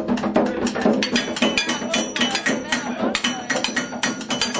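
Improvised drumming on kitchen objects: a fast, dense rhythm of sharp strikes, several a second, some leaving a short ringing tone.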